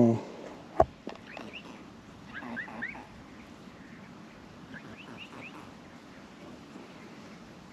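Mute swans calling at close range: short, soft, rising squeaks in small clusters of two or three, about a second, two and a half seconds and five seconds in. A sharp knock comes about a second in, and a brief loud voice sounds right at the start.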